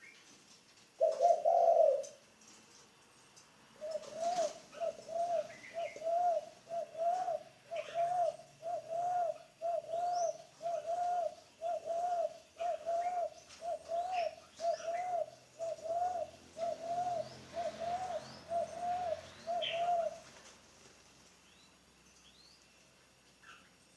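Spotted dove cooing: one long, loud coo, then a steady run of about seventeen short coos, roughly one a second, which stops a few seconds before the end. Faint high chirps of small birds are heard behind it.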